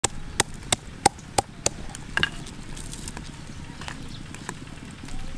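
Cleaver chopping through green onion stalks on a thick wooden chopping board: six sharp strikes in quick succession, about three a second, then a few lighter knocks after about two seconds.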